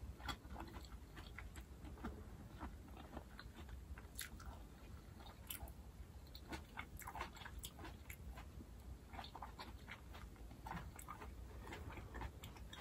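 A person chewing a mouthful of braised shiitake mushroom: faint, irregular wet mouth clicks and smacks.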